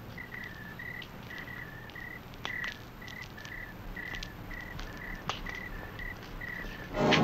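Crickets chirping: short, even chirps, about two or three a second, with a couple of faint knocks in between.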